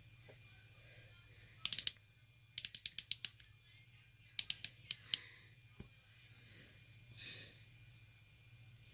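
Three quick runs of sharp, rapid clicks, like a ratchet turning, about one and a half, two and a half and four and a half seconds in.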